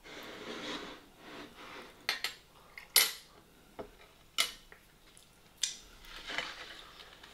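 Cutlery and dishes clinking: a metal serving spoon and fork scraping and knocking against a glass baking dish and a plate on a tabletop. A scrape at the start, then several sharp clinks, the loudest about three seconds in.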